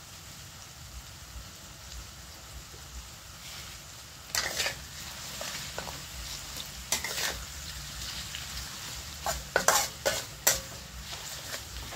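Sliced onions, garlic and red chillies sizzling in oil in a metal wok, with a metal spatula scraping against the wok as it stirs them in bursts from about four seconds in, the loudest scrapes near the end.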